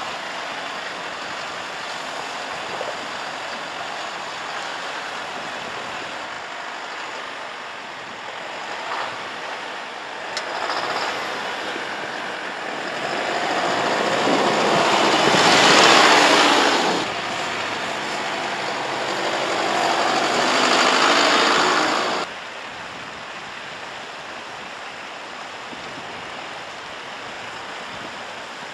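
Mercedes-Benz Unimog U 4023's four-cylinder diesel engine running as the truck crawls through snow over rocks, over a steady background rush. About halfway it swells loud as the truck passes close, then swells again and cuts off abruptly.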